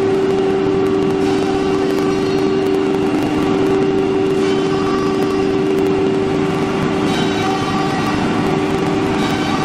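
CNC wood router running, a steady machine hum that holds one constant pitch with fainter overtones above it.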